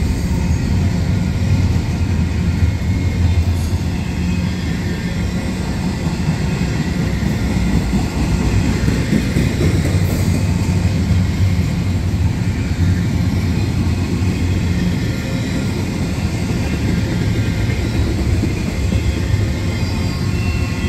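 Double-stack intermodal well cars rolling past close by: a steady, loud rumble of steel wheels on the rails.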